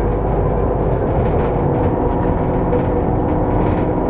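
VDL Citea SLFA 180 articulated city bus idling while it stands, heard from inside the passenger saloon: a steady low engine hum with a few steady tones over it.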